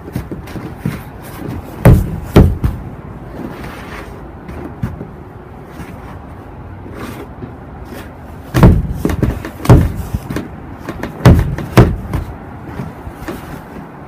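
Snow boot stamping hard on a pocket knife on a snow-covered deck: six loud thuds, two about two seconds in and four more between about eight and a half and twelve seconds, with lighter footfalls in between.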